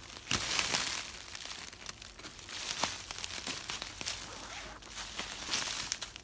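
Footsteps crunching through frozen, crunchy leaf litter, with irregular steps about once a second.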